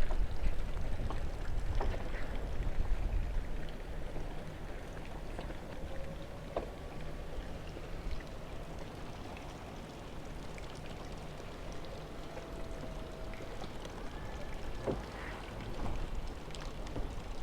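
Mercedes-AMG SL63's electric soft-top roof opening: a faint steady motor hum for several seconds in the middle, with a few light clicks from the mechanism, over a low outdoor rumble.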